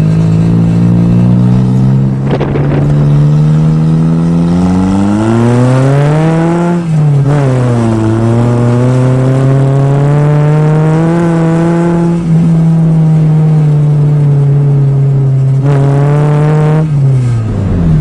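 Nissan 200SX engine accelerating under load: its pitch climbs for several seconds, drops sharply at a gear change about seven seconds in, then rises again and holds steady before falling off near the end.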